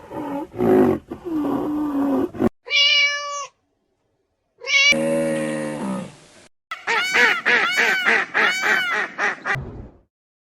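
Cats meowing in several short clips that start and stop abruptly, ending with a run of quick, repeated mews at about three a second.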